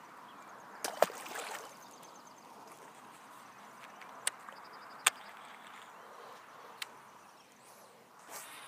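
A bass released back into the pond, hitting the water with a sharp slap and short splash about a second in. Then a few isolated sharp clicks from handling the fishing rod and reel, over faint outdoor background.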